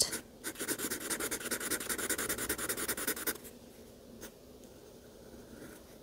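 Felt-tip marker scribbling on drawing paper in rapid back-and-forth strokes, filling an area with solid colour. It stops about three seconds in, followed by a single faint stroke.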